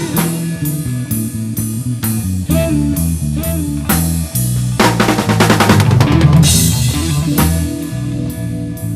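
Live rock-blues band playing an instrumental passage: a drum kit keeps a steady beat with snare and bass drum over a bass guitar line, with guitar. About five seconds in, the drums play a busy fill with crashing cymbals that lasts about a second and a half.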